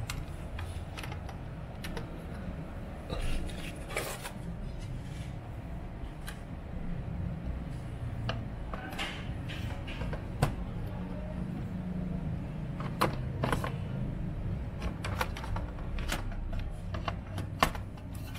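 Small parts and tools being handled while working on a scanner: irregular clicks and light knocks over a steady low hum.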